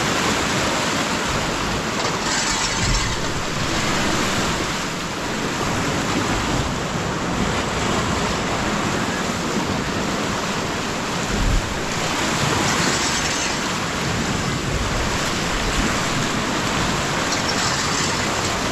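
Floodwater rushing steadily, with wind gusting on the microphone; the noise swells a little every few seconds.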